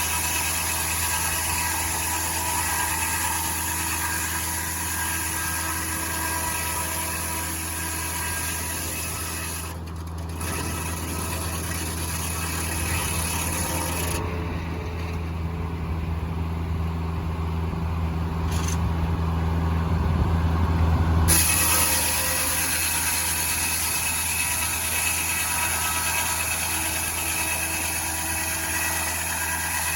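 Foley Belsaw circular sawmill running, a steady machine hum from its power unit and spinning blade. For several seconds past the middle the sound turns lower and heavier, then goes back to the steady run.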